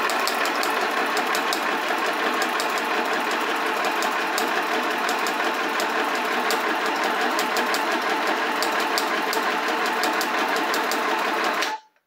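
Philco PMC16 BP domestic electric sewing machine running steadily, stitching a dense zigzag with a fast, even clatter of the needle mechanism; it stops abruptly near the end.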